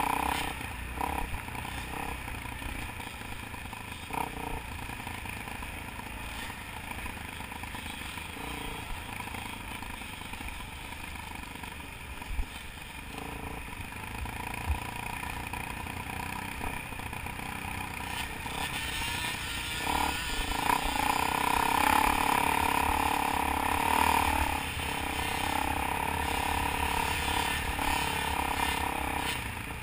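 Dirt bike engine heard from on board, running steadily at part throttle over rough dirt with an occasional knock from the bumps; it gets louder and higher-pitched from about two-thirds of the way in as the rider opens the throttle.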